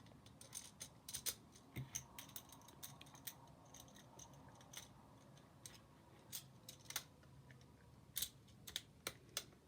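Plastic magnetic building tiles clicking and clacking as they are handled and snapped together, a series of faint, irregular sharp clicks.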